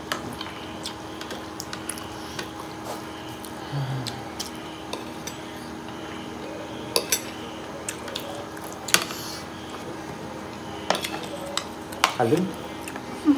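Metal forks and spoons clinking and scraping against ceramic plates and bowls while people eat, in scattered light clicks with a few sharper clinks about seven, nine and twelve seconds in. A steady low hum runs underneath.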